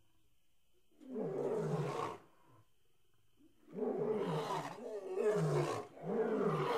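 Roaring that falls in pitch each time: one roar about a second in, then a longer run of several roars from about four seconds in.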